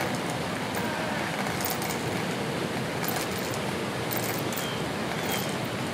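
Steady outdoor background noise: an even rushing wash with no distinct events, touched by faint high ticks.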